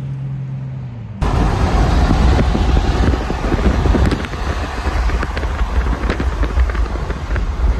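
Car driving at highway speed, with loud road and wind rumble buffeting the microphone; it starts abruptly about a second in, after a low steady hum.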